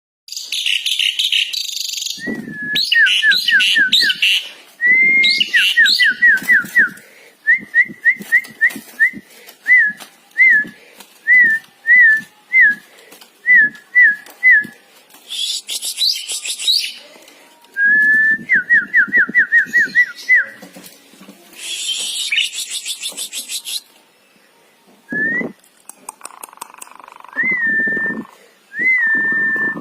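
Songbirds singing loudly in full song: strings of clear whistled notes that slide up and down, alternating with bursts of fast, harsh, high chatter.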